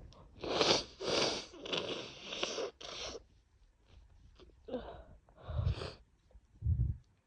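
A woman with a bad head cold making a run of four harsh, breathy bursts from the nose and throat in the first three seconds. A few shorter bursts follow, two of them deep and thudding near the end.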